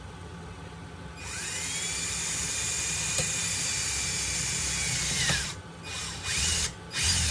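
Small electric drill spinning up about a second in, running steadily for about four seconds while drilling a hole through the holster strap for a rivet, then winding down, followed by two short bursts of the drill near the end.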